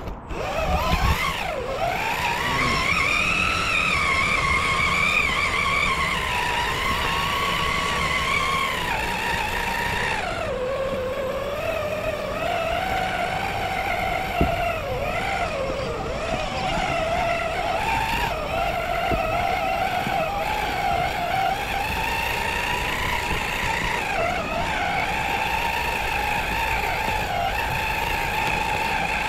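RC4WD Bully 2 rock crawler's electric motor and geartrain whining as it is driven, the pitch rising and falling with the throttle and settling lower about ten seconds in.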